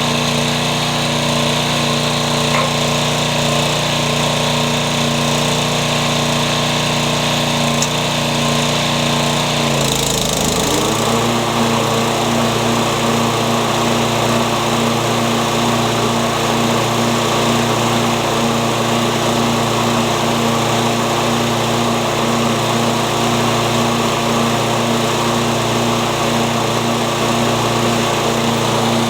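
Toro Super Recycler model 20465 mower engine running steadily. About ten seconds in its note dips briefly, then settles a little lower and steady for the rest of the time.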